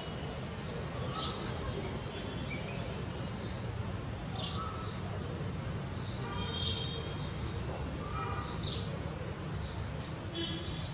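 Birds chirping in short, high calls every second or two, over a steady low rumble.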